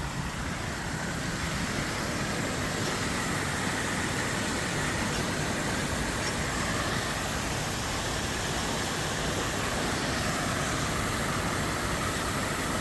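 Water rushing steadily through the opened sluices of a river lock, filling the lock chamber as the water level rises.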